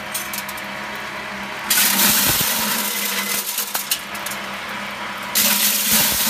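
Electric maize sheller running with a steady motor hum. About two seconds in, and again near the end, a loud rattling hiss sets in as a cob is shelled and the kernels stream out.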